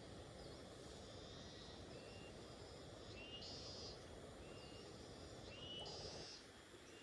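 Faint, steady rain. Short high animal chirps sound over it, loudest twice in the second half.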